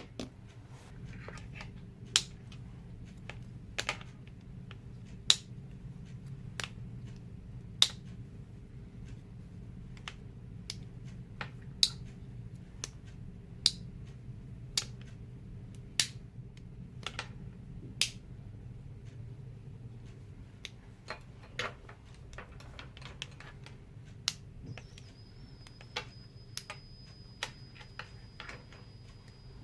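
Sharp clicks, one every second or two at uneven spacing, from the tools of an old Victorinox Spartan Swiss Army knife being worked open and snapped shut.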